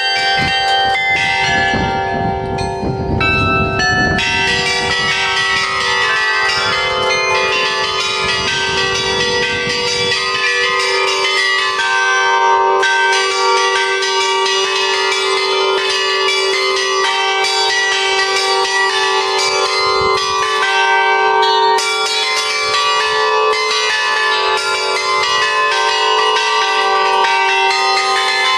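Bronze church bells hung in a portable frame, played by hand in a fast, continuous peal of many overlapping strikes that keep ringing into one another.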